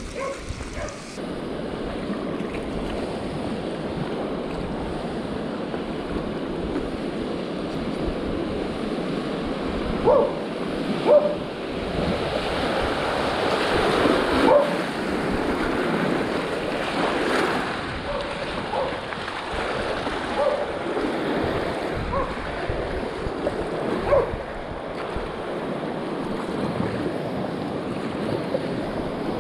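Flowing river water rushing and splashing around a paddleboard, with wind buffeting the microphone. A few brief sharp sounds stand out over it, the loudest between about ten and fifteen seconds in.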